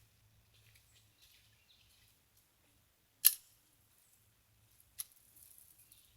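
Two sharp metallic clicks from a Smith & Wesson M&P Bodyguard .380 pistol being handled to clear a double feed. The louder click comes about three seconds in and a fainter one just before the end.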